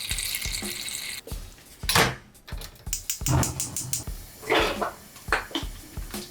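Kitchen work: water running for about a second, then a series of short knocks and clatters.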